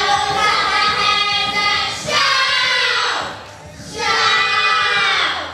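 A group of young boys singing together into handheld microphones, in three phrases with a short break a little past the middle.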